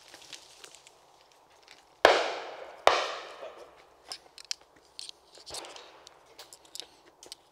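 Two shotgun shots fired as a pair, less than a second apart, the first the louder, each trailing off in a long echo across the range. A few light clicks and knocks follow.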